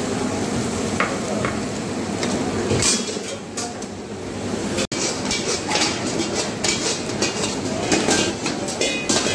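Busy karahi kitchen: a steady roar of gas flames under steel woks with sizzling, and frequent clinks and scrapes of metal ladles on woks and lids. The sound drops out for a split second about halfway through.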